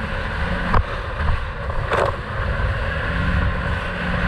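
Sea-Doo personal watercraft's engine running steadily at cruising speed, with water rushing along the hull. Two short knocks, about one and two seconds in, come as the hull strikes the chop.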